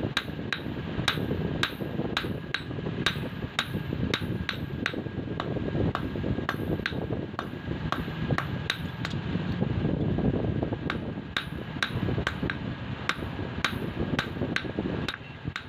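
Hand hammer forging hot steel held in tongs on a steel anvil, about two blows a second, each with a bright metallic ring. The blows pause briefly about two thirds through and stop near the end. A steady low rumble runs underneath.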